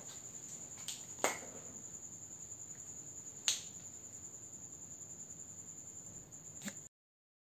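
A steady, high-pitched insect trill with a fast pulse, faint in the background. A few sharp clicks sound about a second in, again about three and a half seconds in, and near the end, and then all sound cuts off abruptly.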